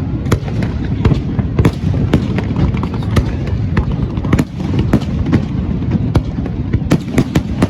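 Fireworks display: shells bursting in an irregular rapid series of sharp bangs and cracks, several a second, over a continuous low rumble.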